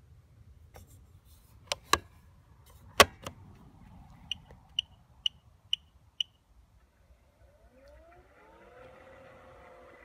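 Husqvarna Automower 315 robotic lawn mower starting up: a few sharp clicks and a louder clack as the Start button is pressed and the hatch shut, then five short high beeps about half a second apart, then its motors whining up in pitch and settling into a steady run.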